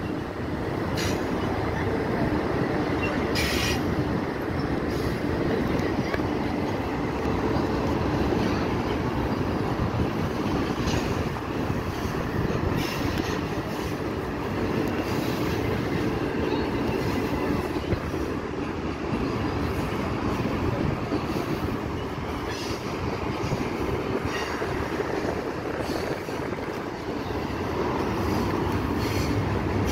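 Double-stack container cars of a freight train rolling past: a steady rumble of steel wheels on rail, with a few brief high wheel squeals.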